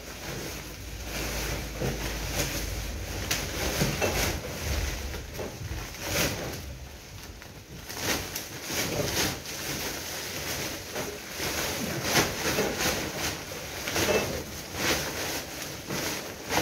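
Large woven plastic rubble sacks rustling and crinkling as they are shaken open and handled for filling with demolition debris, with irregular crackles and knocks.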